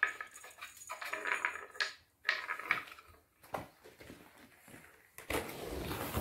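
Wooden balls rolling and clattering round the tiers of a wooden cat track toy as kittens bat at them, in two rattling runs with a few sharp clicks after. A dense rustle near the end.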